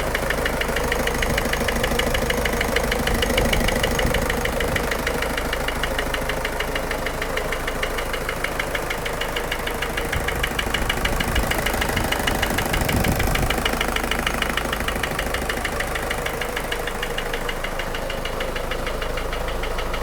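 ZMZ-514 four-cylinder diesel engine idling steadily with a rapid, even knock: the engine has a knocking fault.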